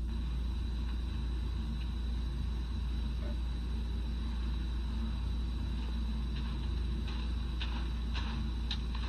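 Steady low electrical hum with a thin high whine from the old tape's playback. From about six seconds in, short crunches at roughly half-second intervals: boots stepping through snow.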